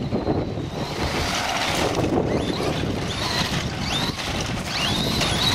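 Traxxas Stampede 4x4 VXL RC monster truck's brushless electric motor whining, rising and falling in pitch several times as the throttle is worked, under a heavy rumble of wind on the microphone.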